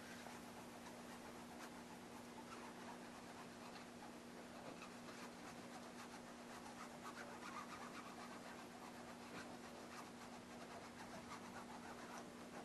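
Faint scratching of a plastic squeegee rubbed back and forth over a vinyl decal, pressing it down onto painted aircraft fabric, over a steady low hum.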